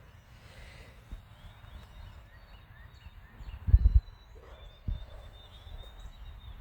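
Faint birds chirping in an outdoor garden background, with a thin steady high note in the second half. A few dull low thumps break in, the loudest cluster a little past halfway.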